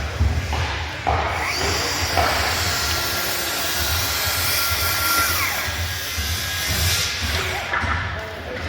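A power tool running for several seconds, from about a second in to about seven seconds in, over background music.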